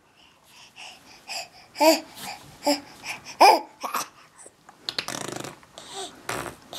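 A baby babbling in short squeals and coos, then blowing a raspberry with his lips buzzing against the wooden crib rail for about half a second, a little after halfway through.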